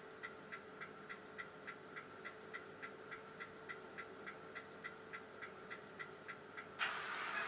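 N gauge locomotive's DCC sound decoder (ESU LokSound Micro) playing its start-up sequence as track power is restored: faint, even ticking about three to four times a second, then a loud hiss starting shortly before the end.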